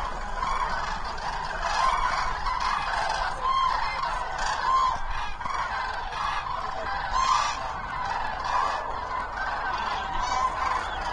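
A large flock of common cranes calling, a dense chorus of many overlapping trumpeting calls.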